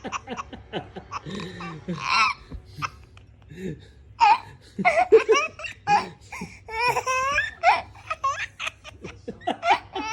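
A baby laughing in a run of short, high-pitched bursts, with a brief pause near the start.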